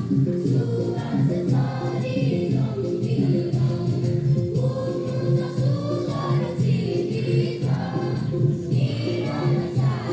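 A group of voices singing together over a steady musical accompaniment of held notes.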